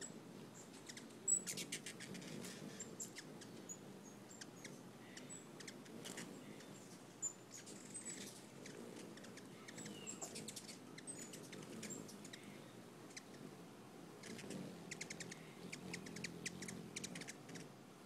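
Hummingbirds at a feeder giving short, high chirps throughout, with bursts of rapid chattering chips about a second in and again near the end.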